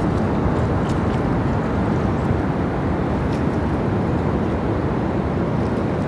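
Steady low roar of ocean surf breaking on the reef, even and unbroken, with a few faint high clicks.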